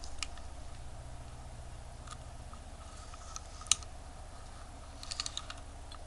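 Scattered small sharp clicks and taps of a watch case back being worked onto a small wristwatch case, with a quick run of clicks near the end, over a low steady hum.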